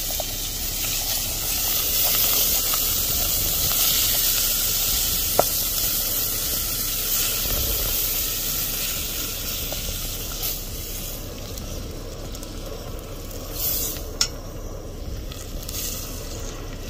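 Butter and chopped garlic sizzling as they melt in a stainless steel pot on a portable gas camp stove, with a few sharp clicks of a utensil against the pot. The sizzle is strongest in the first half and eases off later.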